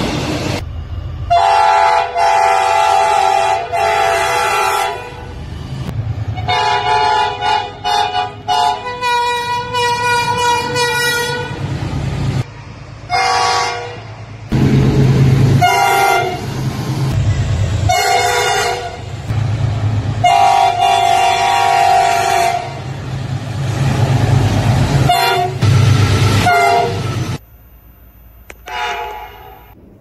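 2800 class diesel locomotive sounding its multi-note country horn in a series of loud blasts, some long and several short, over the low rumble of its diesel engine as it approaches and passes. The sound cuts off suddenly near the end.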